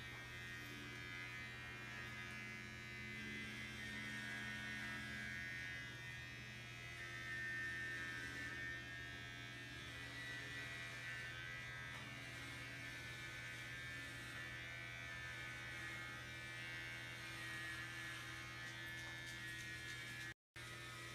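Electric hair clippers running with a steady buzz while shaving hair off a head.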